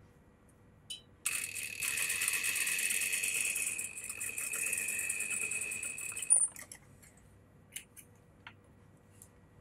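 Industrial lockstitch sewing machine stitching a seam for about five seconds with a steady high whine, then stopping with a sharp click. A few faint ticks follow as the work is handled.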